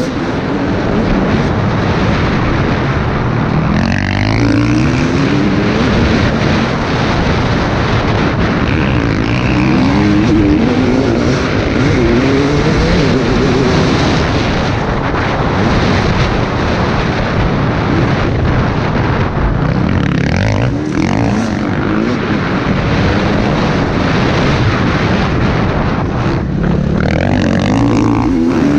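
KTM 250 EXC TPI single-cylinder two-stroke engine at race pace, its revs repeatedly climbing and dropping as the throttle is worked through the gears.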